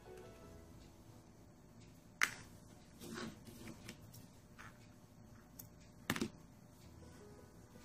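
Hands handling crochet pieces on a wooden tabletop: two sharp knocks, about two and six seconds in, as things are set down, with softer rustles and ticks in between. Faint background music underneath.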